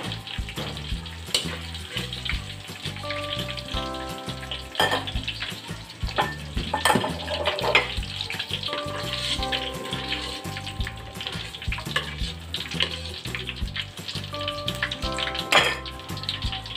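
Tofu cubes deep-frying in oil in a wok: a steady sizzle and crackle, with several sharp knocks. Background music with held notes and a stepping bass line plays throughout.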